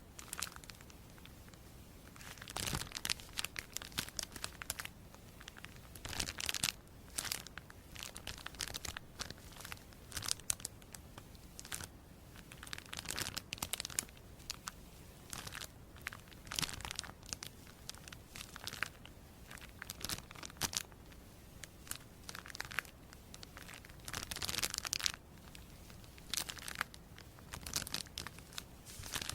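Crisp crinkling and tearing sounds, coming in irregular crackly bursts with short quieter gaps between them.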